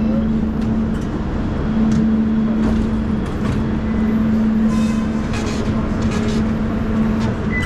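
Metro train running: a low rumble with a steady hum that drops out briefly a few times, and scattered clicks.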